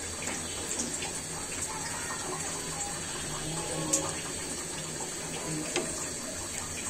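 Lentil fritters sizzling in hot oil in a black iron pan, a steady frying hiss, with two sharp taps of a metal spatula against the pan, about four seconds in and again near the end.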